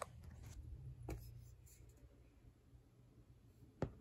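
Faint clicks and taps of small plastic horse figurines being handled and set down on a clear plastic bin, a few light ones in the first second and a half and a sharper tap near the end.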